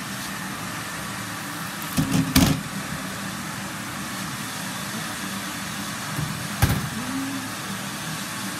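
Metal baking sheets set down on wire cooling racks: a clattering knock about two seconds in and another a little before seven seconds. Both ride over a steady rushing hiss.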